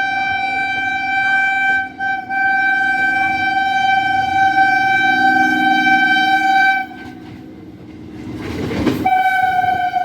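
EMU local train's electric horn sounding long steady blasts, with a brief break about two seconds in. It stops near seven seconds, a loud rush of the passing train follows, and the horn sounds again slightly lower in pitch.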